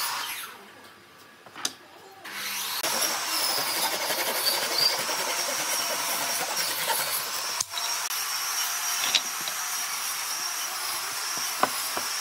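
Hand saw cutting through a softwood strip: steady sawing noise from about two seconds in, after a quieter start with a single click.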